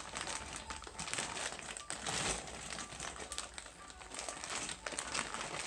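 Crinkling and rustling as hands rummage through a box of pressure washer parts and their packing, in irregular bursts.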